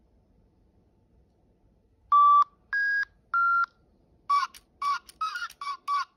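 DigiPenguins electronic toy penguin answering a whistle: three short electronic beeps, each at a different pitch, then from about four seconds in a fast run of chirping electronic notes as it starts to sing.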